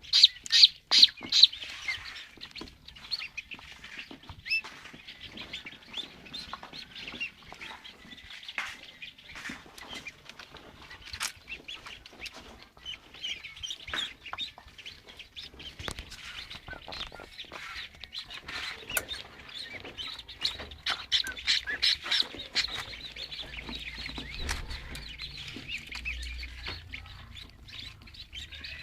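Newly hatched chicks in an egg incubator peeping continuously, many rapid high calls overlapping. The calls are loudest at the very start and again about two-thirds of the way through, with scattered light knocks.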